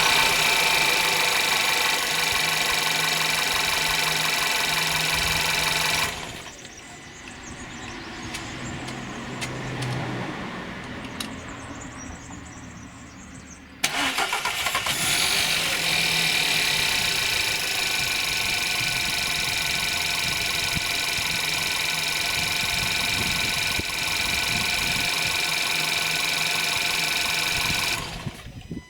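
1.2 TSI EA111 petrol engine running cold with timing chain rattle, which is put down to the hydraulic timing chain tensioner. The sound drops sharply about six seconds in and stays low. It comes back abruptly about fourteen seconds in, then runs steadily until it falls away just before the end.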